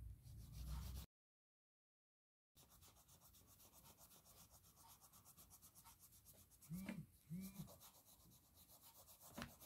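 Faint, quick back-and-forth strokes of a yellow wax crayon rubbing over paper as an area is coloured in, several strokes a second. The sound drops out completely for a moment about a second in.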